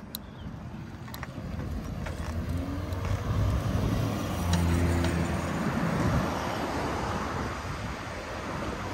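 Road traffic heard from a moving bicycle: a motor vehicle's engine hum swells and fades in the middle, over a steady wash of traffic and wind noise, with a few sharp ticks.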